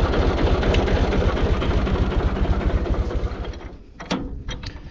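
Tractor engine running with a fast, even chugging that fades away about three and a half seconds in, followed by a few sharp knocks near the end.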